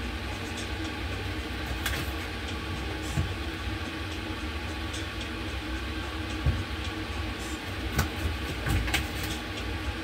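Steady low rumbling hum of a kitchen, with a few scattered light clicks and knocks of pots and utensils being handled at a gas stove.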